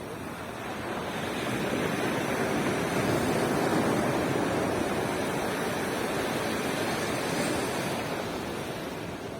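A wave breaking and washing up the beach: the surf swells over a few seconds, then slowly fades.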